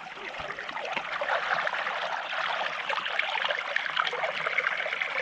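Shallow creek water running and trickling close by, a steady bubbling hiss that grows a little louder after about a second.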